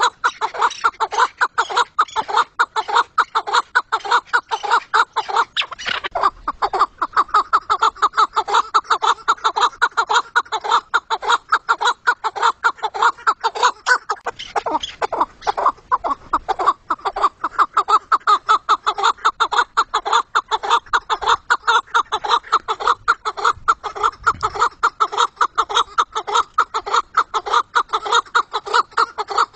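Chukar partridge calling: a rapid, steady run of short clucking notes, several a second, without a break.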